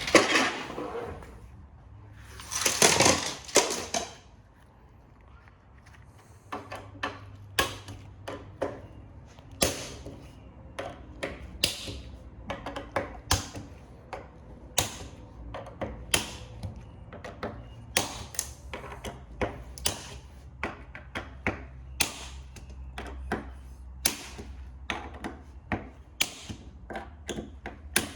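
Hand tools working on metal printer parts during disassembly: a short clatter, then a long run of irregular sharp clicks and taps, often several in quick succession, over a low hum.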